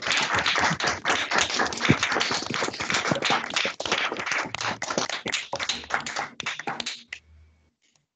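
Applause heard over a video call: several people clapping, a dense rapid patter that cuts off suddenly about seven seconds in.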